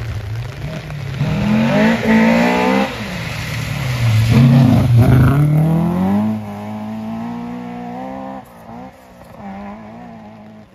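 Rally car at full throttle on a gravel stage, its engine climbing in pitch through several pulls between gear changes. It is loudest about four to five seconds in, then fades as the car drives away.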